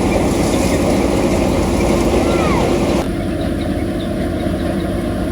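An engine-driven machine running steadily. About three seconds in the sound turns abruptly duller and a little quieter.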